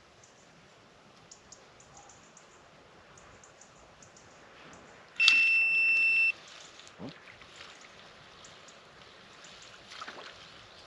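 Electronic bite alarm on a fishing rod sounding one high-pitched, steady beep of about a second, about halfway through, the signal of a fish biting and pulling on the line.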